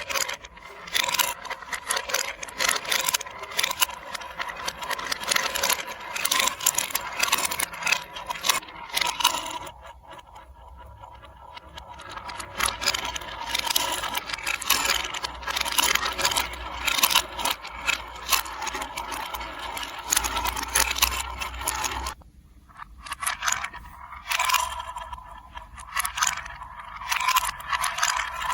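Marbles rolling and clattering through a plastic building-block marble run: a dense stream of rattling clicks and scrapes that thins out briefly about ten seconds in.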